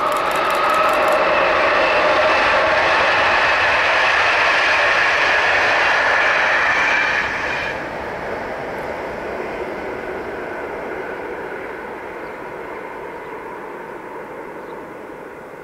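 Electric locomotive-hauled passenger train passing at speed: a loud steady rush of wheels on rail with a humming tone in it and a quick run of clicks in the first second. The noise drops suddenly about seven and a half seconds in as the last coach goes by, then fades away as a receding rumble.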